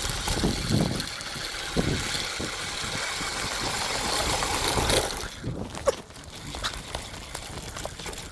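Motorized bicycle's small gas engine running under wind rush. About five seconds in, the sound drops off sharply, leaving quieter scattered clicks and knocks.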